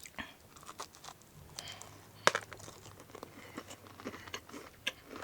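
Close-miked chewing of a cranberry cookie: soft crunches and wet mouth clicks scattered throughout, with one sharper crunch about two seconds in.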